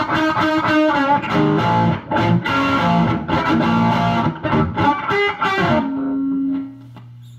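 Stock Telecaster with vintage pickups played through a TopHat Super Deluxe tube combo (EL34 power tubes, two 10-inch Celestion Greenback speakers): a run of picked notes and chords ending on one held note. The note dies out about six and a half seconds in, leaving the amp's steady low hum.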